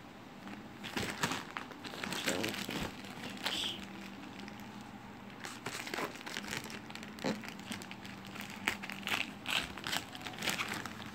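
Plastic courier mailer pouch crinkling with irregular sharp crackles as it is handled and cut open with scissors.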